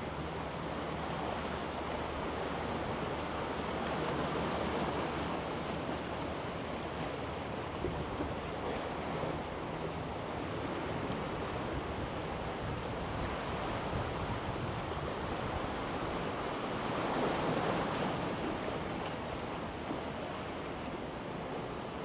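Sea surf washing against the shore: a steady rushing that swells twice, around four seconds in and more strongly near seventeen seconds.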